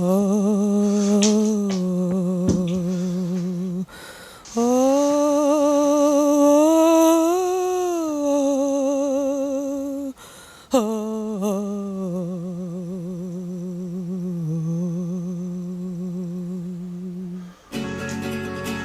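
A man humming long, wavering held notes in three phrases, with short breaks between them.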